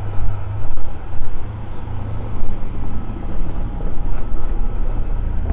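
Street ambience while walking beside a road: a steady low rumble on a hand-held camera's microphone, with a car passing close by about four seconds in.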